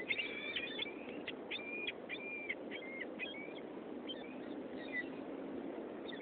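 Seagulls calling: a quick run of short, even-pitched calls over the first three seconds, then scattered calls, over a steady low rush of background noise.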